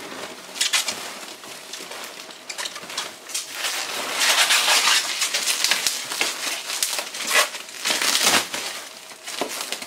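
Plastic bubble wrap crinkling and rustling as it is pulled out of a cardboard shipping box, loudest about halfway through.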